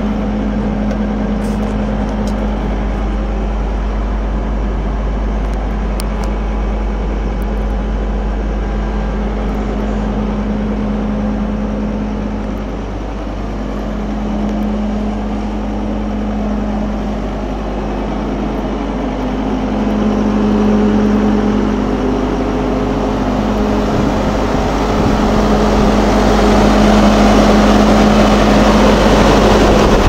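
2011 John Deere 326D skid steer's diesel engine idling steadily with a low hum and a steady droning tone, growing louder over the last third.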